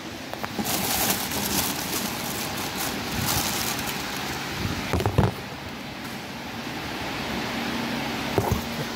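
Rustling and handling noise of hands working on parts, with a few sharp knocks about five seconds in and again near the end.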